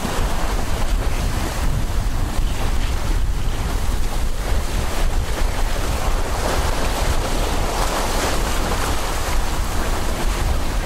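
Wind buffeting the microphone over the steady rush of the bow wave and spray as a sailing yacht heels and drives through choppy sea; the water noise swells a little in the middle.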